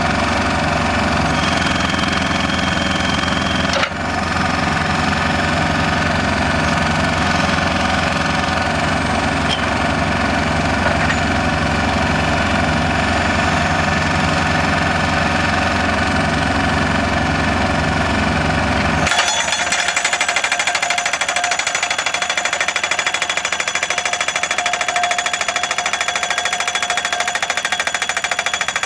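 Solar pile driver's hammer rapidly pounding a steel post into the ground, with the machine's engine running underneath. About two-thirds through the sound switches abruptly to rapid hammering without the engine's low rumble.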